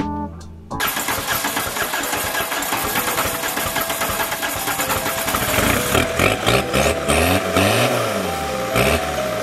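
Car engine catching about a second in and running fast and rough, then revved up and down several times near the end.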